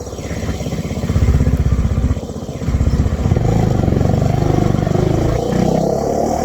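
Bajaj Dominar 400's single-cylinder engine running and being revved. There is a short rise about a second in, then a longer rev held from about three seconds in until near the end.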